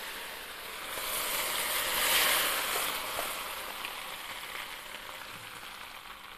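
Blended green chilli, onion and garlic paste sizzling in hot oil in a wok, loudest about two seconds in, then gradually dying down.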